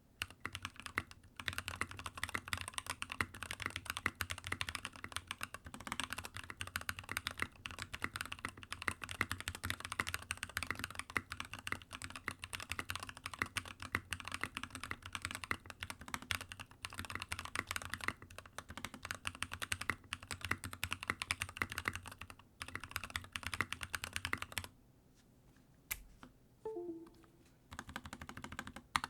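Mechanical keyboard with lubed Durock POM T1 67 g tactile switches and KAT-profile blank keycaps in an NK65 Entry Edition case, typed on quickly in a dense run of key clacks. The typing stops for a couple of seconds about three-quarters of the way through, then resumes.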